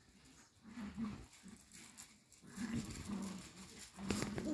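Cocker spaniel puppies play-fighting, giving a string of short, low play growls. The growls come thicker in the second half, and the loudest is about four seconds in.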